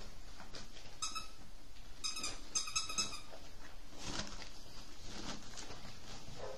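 Rottweiler puppies playing and scuffling over toys and blankets. A few short high squeaks come about one to three seconds in, all at the same pitch.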